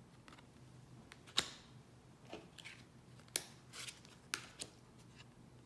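Tarot cards being handled and flipped: three sharp card snaps about a second apart, with soft sliding rustles of card stock between them.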